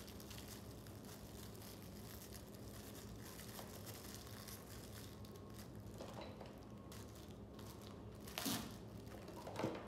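Packaging of a dog-training clicker being crinkled and torn open by hand, with two short, louder sharp sounds near the end.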